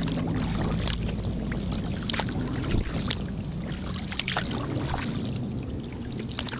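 Kayak paddle blades dipping and splashing in the water, a short splash roughly once a second, over a low rumble.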